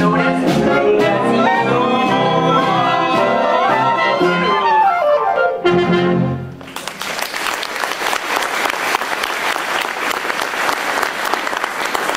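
Pit orchestra with brass playing the closing bars of a show tune, ending on a short final chord about halfway through, followed by audience applause.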